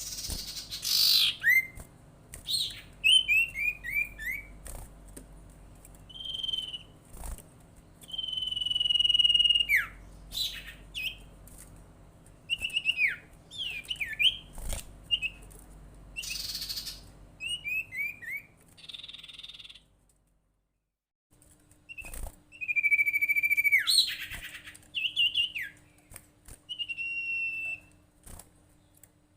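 A sirtu songbird singing a varied run of clear whistles and quick falling note series, with a brief break about two-thirds of the way through. It is a calling song used to prompt other sirtu or cipow birds to sing.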